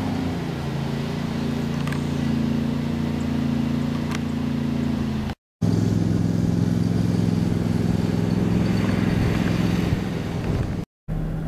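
Tractor loader backhoe's engine running at a steady idle, with two brief dropouts where the sound cuts out.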